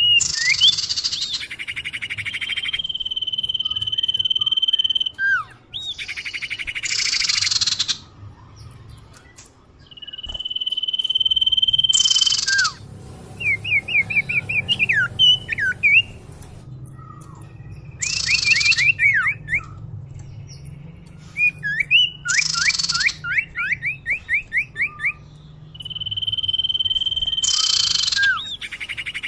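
Common iora (cipoh/sirtu) song played as a lure call. Phrases come every few seconds: long steady whistled notes, quick runs of short down-slurred notes, and loud harsh rasping bursts.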